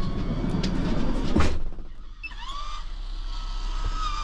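The van's electric fans being switched on: a rustle and clicks, then a motor whine that rises in pitch about two seconds in and settles into a steady high hum near the end. A low steady hum runs underneath throughout.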